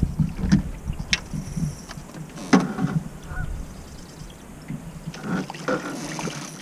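Scattered knocks and clicks from a landing net and fishing gear in an aluminium boat while a hooked fish is brought alongside, with a few short pitched sounds among them.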